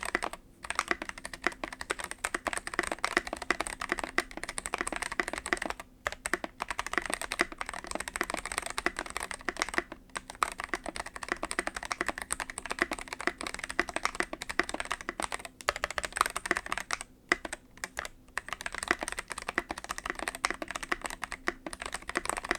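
Fast, continuous typing on an Akko ACR 75 mechanical keyboard, with an acrylic case and FR4 plate. The keystrokes clack densely, with a few brief pauses between bursts.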